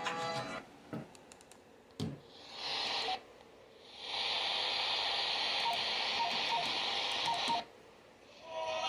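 Radio static: a click, a short burst of hiss, then a steady hiss for about three and a half seconds that cuts off suddenly.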